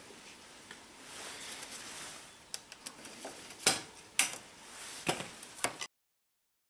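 Bicycle chain being taken off by hand: metal links rattling and clinking, with several sharp clicks at irregular intervals in the second half.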